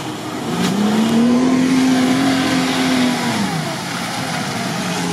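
Mitsubishi Pajero II's engine revving as it pulls through a deep mud rut: the revs climb about half a second in, hold for a few seconds, then drop back to a steady low idle near the end.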